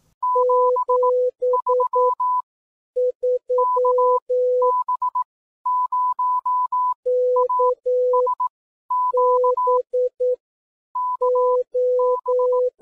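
Morse code beeps: clean electronic tones keyed in short and long marks, sent in groups that alternate between a higher pitch and a lower one an octave below.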